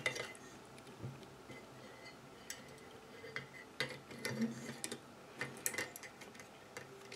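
Scattered light clicks and taps of small metal and glass parts handled by hand as a miniature Stirling engine kit is assembled, the glass test-tube cylinder being fitted into its metal holder.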